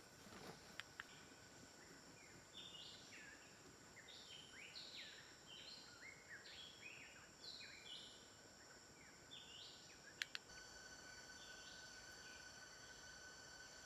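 Faint bird chirps: a run of many short, high, downward-sliding notes in quick succession for several seconds, over a steady high-pitched whine. A few sharp clicks near the start and after the chirping.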